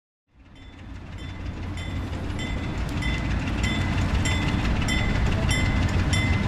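Diesel-hauled freight train rolling along the track: a deep rumble with a regular sharp metallic clack and short ring from the wheels, a little under twice a second, fading in and growing louder.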